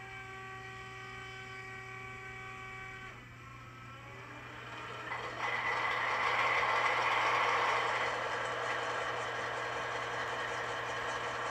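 ESU LokSound V5 sound decoder in an HO scale MTH Union Pacific Veranda gas-turbine locomotive playing its start-up sequence through the model's small speaker. A steady whine of several tones lasts about three seconds, then a rushing turbine sound swells in about five seconds in and settles into a steady idle.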